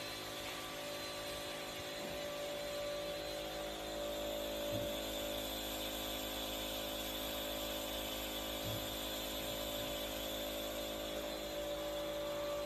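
Compressor nebulizer running steadily for a dog's inhalation treatment: a constant motor hum with an even hiss.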